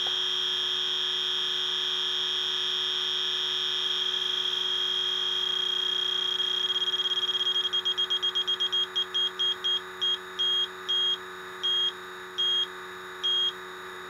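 Electronic refrigerant leak detector alarming on a freon leak at an evaporator coil. It sounds a steady high tone, then about halfway through breaks into rapid beeps that slow down to about one a second as the sensor clears and zeroes out.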